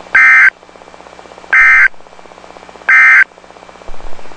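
Emergency Alert System end-of-message code: three identical short, loud bursts of warbling digital data tone, each about half a second long and spaced about a second and a half apart, signalling that the warning message is over.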